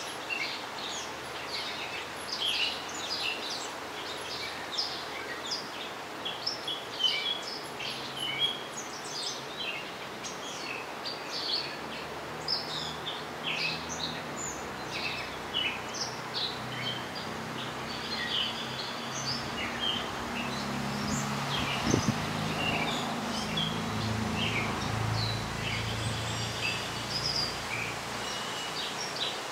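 Many small songbirds chirping and twittering continually over outdoor background noise. From about halfway a low rumble builds underneath, with a single brief knock a few seconds later.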